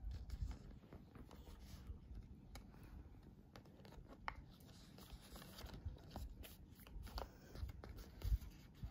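Foil sample sachets crinkling and rustling as they are handled and pawed, with scattered soft clicks and a sharper tap near the end.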